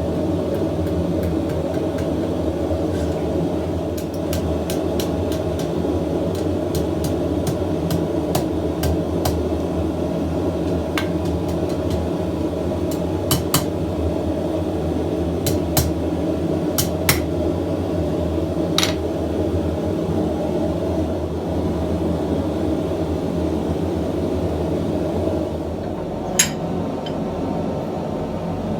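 Propane forge burner running with a steady low rush, with scattered light metal-on-metal clicks and taps and one sharper knock near the end.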